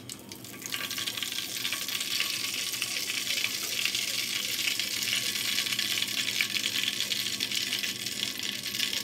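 Hot oil sizzling and crackling as mini martabak pastries deep-fry in a pot. The sizzle swells about a second in and then holds steady.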